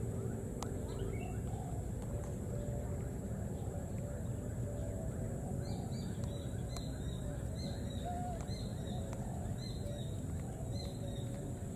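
Outdoor ambience: a steady low rumble, with faint short high chirping calls repeating from about six seconds in.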